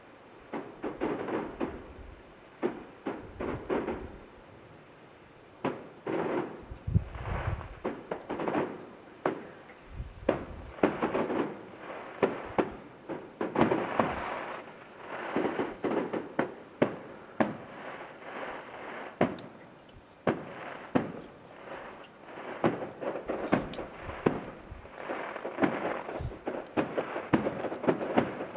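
Fireworks display heard from about a mile away: a steady barrage of shell bursts, bangs and crackles following one another closely, with a short lull about four seconds in.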